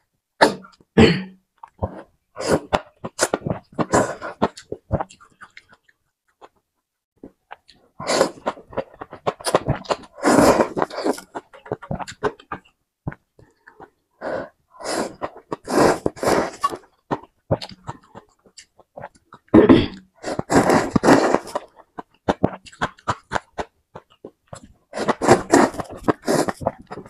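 Noodles being slurped and chewed close to the microphone, in repeated bursts with short pauses between them.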